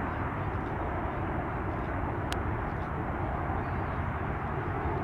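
Airbus A220's Pratt & Whitney PW1500G geared turbofans: a steady jet roar with a deep rumble as the airliner climbs away after takeoff.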